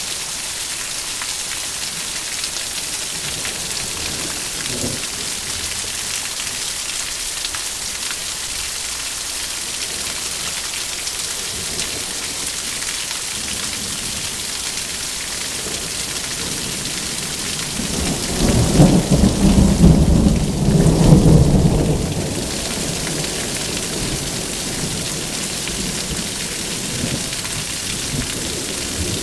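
Steady rain hissing, with a roll of thunder rumbling up about eighteen seconds in and dying away some four seconds later.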